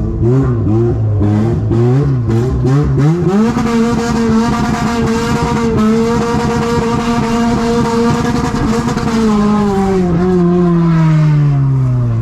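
Toyota 2ZZ four-cylinder car engine being revved: a few quick blips, then revs climbing to a high pitch held steady for several seconds before falling away.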